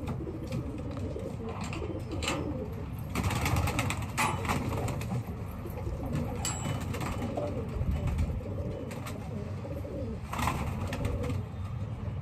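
Domestic pigeons cooing in a loft, with a few brief rustles and knocks as the wire-mesh cage is handled.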